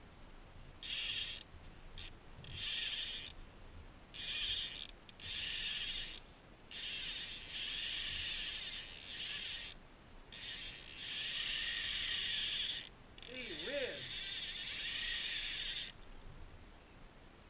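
Fly reel's click-and-pawl drag ratcheting in repeated spurts, from about half a second to three seconds long, while a hooked carp is played on a 6-weight fly rod. The spurts stop a little before the end.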